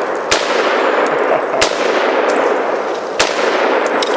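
Three shots from a Springfield M1A semi-automatic rifle in .308 (7.62×51), spaced about a second and a half apart, each echoing off the surrounding hills. Metallic clangs come from hits on steel targets.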